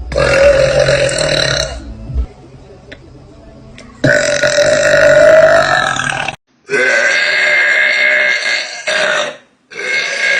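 Girls belching loudly: a series of long, drawn-out burps, one lasting nearly two seconds at the start, another about four seconds in, then two or three more after an abrupt cut.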